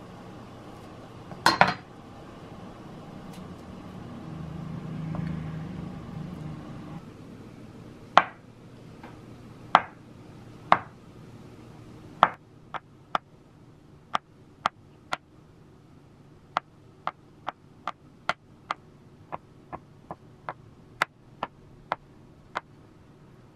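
Kitchen knife chopping on a cutting board: a loud clack about a second and a half in, a few spaced chops, then a quicker, uneven run of chops at about two a second.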